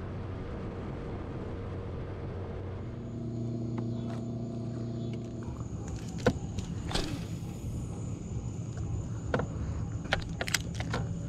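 Boat motor running steadily, its tone shifting slightly about three seconds in, with a handful of sharp clicks and knocks over the second half.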